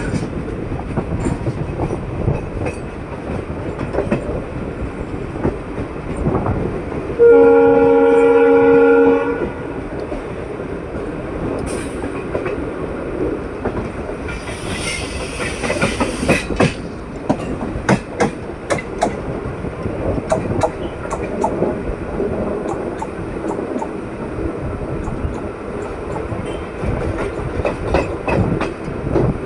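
Passenger train running, with rail-joint clickety-clack throughout. About seven seconds in, the WAP-4 locomotive's EMD-type horn sounds one chord blast of about two seconds, the loudest sound.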